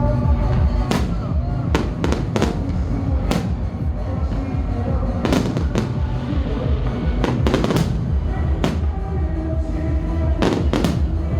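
Aerial fireworks bursting: about a dozen sharp bangs at irregular intervals, some in quick runs of two or three. Music plays throughout.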